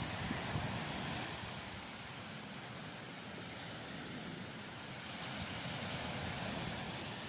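Sea surf washing onto a beach: a steady hiss that swells and eases, with wind on the microphone.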